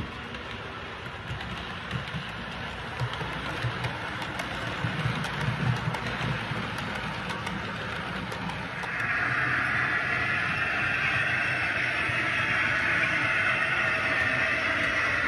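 Model railway trains running on the layout: small motors whirring and wheels clicking over the track, the sound growing louder and higher-pitched about nine seconds in.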